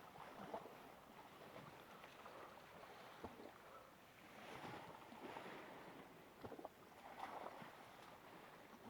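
Near silence: a faint outdoor background with a few soft clicks and faint distant murmurs.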